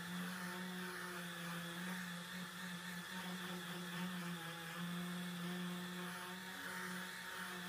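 Random orbital sander with a dust-extraction hose running steadily while sanding body filler on a car body panel: a steady hum with a hiss over it, unbroken throughout.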